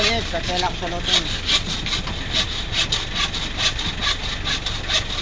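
Hand saw cutting through bamboo poles in quick back-and-forth strokes, about two to three a second. A voice speaks briefly near the start.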